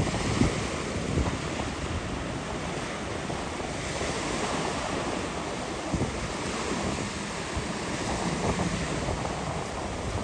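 Steady wind buffeting the microphone over the rush and wash of water, with no clear engine note standing out.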